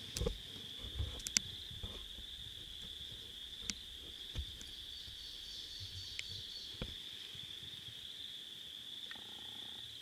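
A steady high-pitched chorus of small calling animals, with several short sharp knocks and clicks over it.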